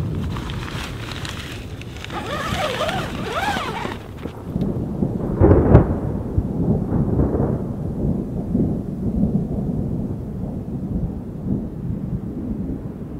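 Thunder rumbling over a steady noise like rain, with a loud clap about five and a half seconds in. Between about two and four seconds a wavering tone rises and falls above the rumble.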